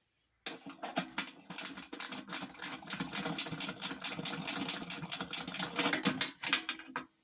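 3/8 socket wrench turning a nut on a furnace blower motor mount, with rapid continuous ratcheting clicks that start about half a second in and stop near the end.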